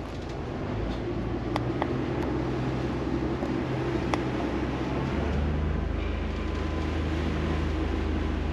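Leopard 45 catamaran's inboard diesel engines running under load, holding the boat in place against strong wind with no anchor set. About five seconds in, the engine note turns deeper and heavier.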